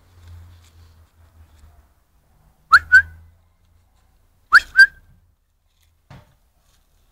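A person whistling two short rising notes, then the same two-note whistle again about two seconds later; both pairs are loud.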